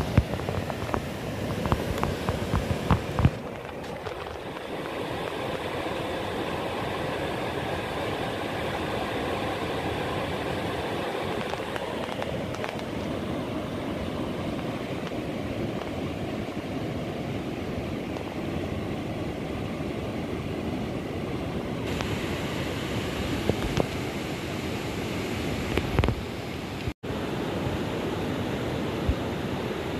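Steady rushing of a fast river running over rocky rapids. A handful of low knocks and buffets come in the first few seconds.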